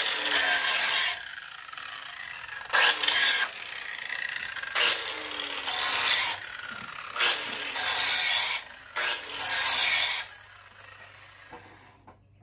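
Handheld electric angle grinder grinding the flat back of a steel mower blade in about six short passes, with quieter gaps between them, to knock off small nicks without putting a bevel on the back.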